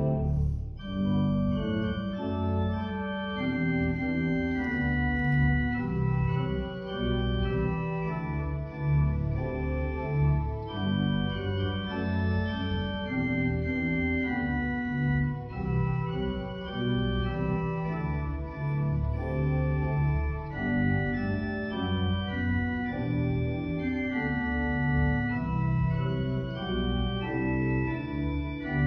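Organ playing a church prelude: held chords over sustained bass notes, the harmony shifting every second or two.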